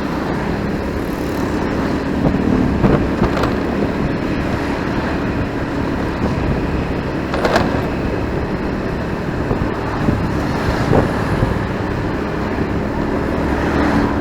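Road noise recorded from a moving motorcycle in city traffic: the bike's engine running steadily under a dense wash of surrounding traffic, with a few short sharp knocks, the clearest about halfway through.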